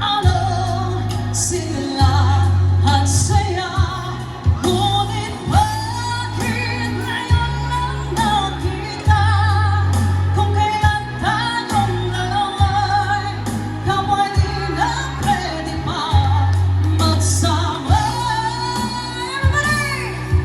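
A pop song with a woman singing over sustained bass notes, played through a Crown RCX15 loudspeaker run flat with no EQ.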